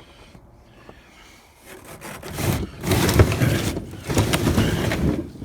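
Junk being dragged and shifted: a rough scraping and rubbing with scattered clatters that starts about two seconds in and stays loud to the end.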